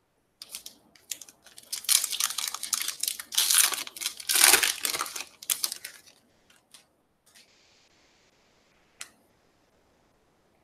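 A pack of baseball trading cards being opened by hand: a few seconds of crinkling and tearing of the wrapper, loudest in the middle, then a few light clicks as the cards are handled.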